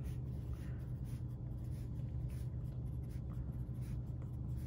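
Graphite pencil writing on paper in short, light strokes, over a steady low hum.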